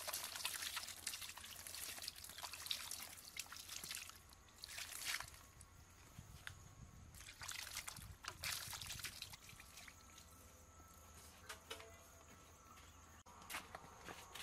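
Water poured from a steel bowl over someone's hands as they are washed, splashing down onto the ground and plants. It comes as one long pour over the first four seconds, then shorter pours around five and eight seconds in.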